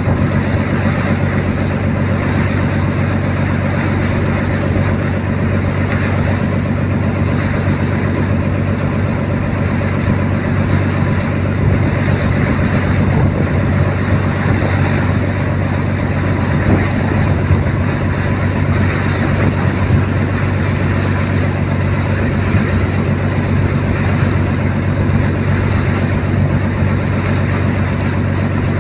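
Boat engine running steadily under way, heard on board as an unbroken low drone.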